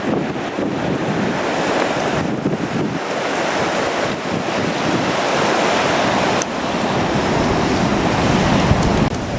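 Ocean surf breaking on a rocky shore, a continuous loud wash, with strong wind buffeting the microphone. A low gust rumble swells near the end.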